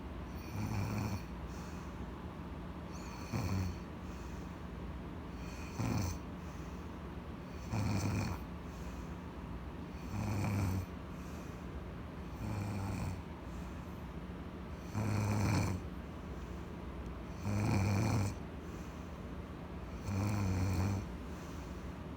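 A woman snoring in her sleep: about nine rasping snores, each half a second to a second long, repeating roughly every two and a half seconds.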